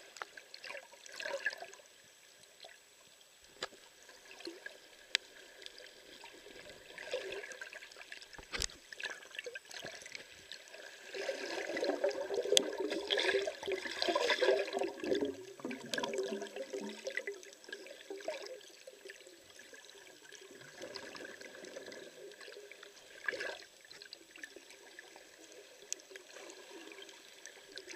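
Water heard by a camera held underwater: a muffled wash of moving water with a few sharp clicks, swelling into a louder stretch of churning, bubbling water from about eleven to sixteen seconds in.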